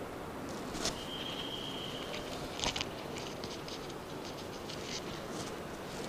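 Steady background hiss with scattered light clicks and taps, and a steady high tone lasting about a second, beginning about a second in.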